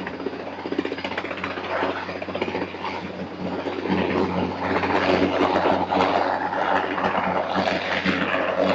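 Helicopter hovering overhead, its rotor and engine running steadily with a low hum, growing louder about four seconds in as its lift cables come down toward the tower top.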